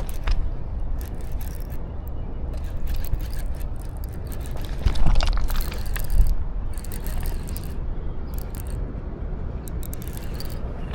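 Steady low rumble with scattered scraping and clicking noises, and two louder bursts about five and six seconds in.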